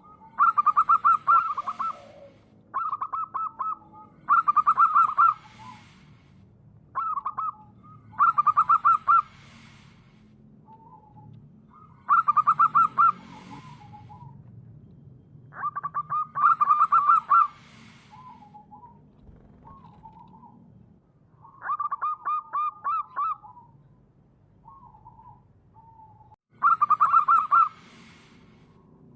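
Wild local zebra dove (perkutut) singing: a loud phrase of fast, stuttering coos repeated about seven times, with soft single coos in the pauses between.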